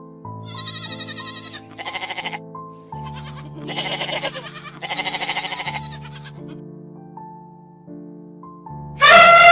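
A goat bleating four times in the first six seconds, each call wavering, over soft background music. Near the end an elephant's loud trumpet call starts and is the loudest sound.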